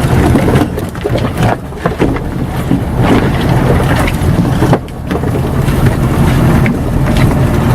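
Car engine running steadily while driving, heard from inside the cabin, with scattered knocks and rattles from the car body.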